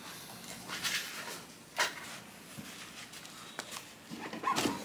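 Handling noises from a dune tire and wheel being set up for mounting: a few scattered light knocks and scrapes, the sharpest about two seconds in and a short cluster near the end.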